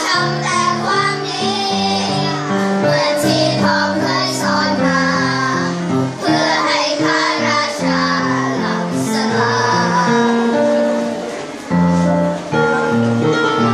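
Children's choir singing in unison with piano accompaniment, with a short break between phrases near the end.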